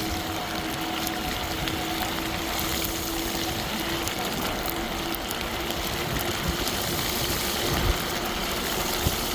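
PuckiPuppy Bulldog electric bike riding over snowy, slushy road: the 1000 W motor hums at a steady low pitch under a constant rush of wind and tyres on wet snow, with a few small knocks from bumps.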